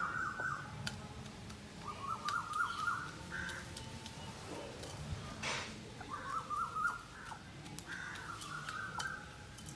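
Birds calling in four short bouts of wavering calls, each about a second long, with a few sharp clicks of a hen's beak pecking grain from a metal dish.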